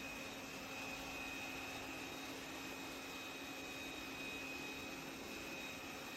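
Roborock Qrevo Curv S5X robot vacuum running, a steady whine over an even hiss of moving air.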